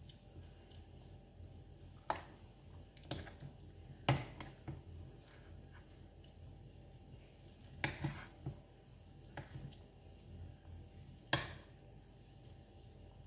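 Metal fork clinking and scraping against a plate while picking up sticky rice and mango, a scattering of separate sharp clicks, the loudest about four seconds in and again past eleven seconds.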